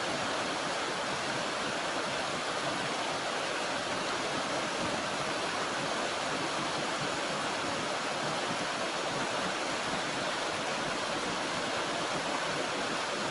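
Steady rush of flowing water from a small mountain stream and waterfall, an even, unbroken sound.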